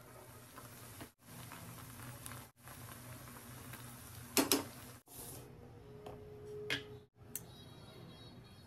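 A few light clicks and clinks of a spoon against a spice container as spices are scooped out: two close together about halfway through and another shortly after, over a faint steady hum, broken by brief dropouts.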